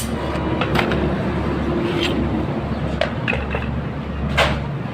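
A few separate sharp metal knocks, about five in the space of several seconds, over a steady low hum.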